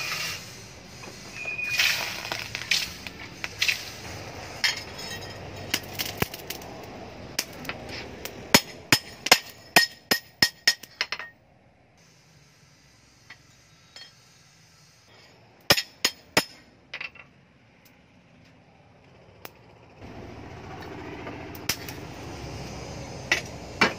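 Hand hammer striking a steel kitchen-knife blade on a small anvil: a run of sharp, ringing clinks that come closest together, about four a second, near the middle of the first half, then a few scattered strikes later on.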